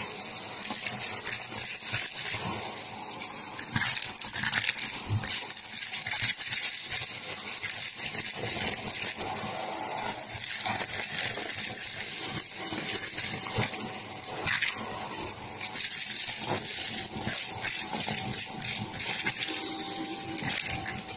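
Shark vacuum cleaner sucking up a pile of fluff, popcorn kernels and craft bits from carpet: a steady rush of air with constant rattling and clicking as the debris is pulled up the wand, louder in surges as it bites into the pile.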